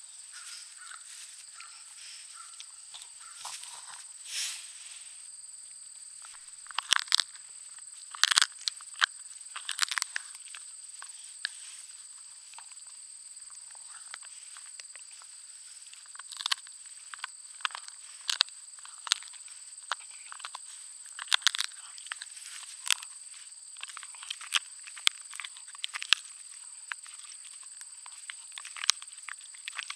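A Schnauzer-pug mix dog chewing a bone: irregular crunches and sharp gnawing clicks, in clusters about a quarter and again half to three-quarters of the way through, over a steady high-pitched insect drone.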